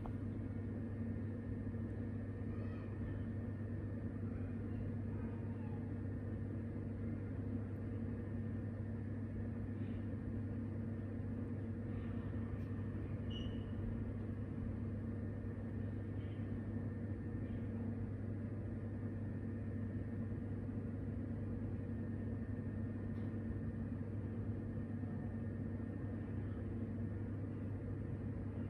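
A steady low hum that never changes in level, with a few faint, short, high sounds around the middle.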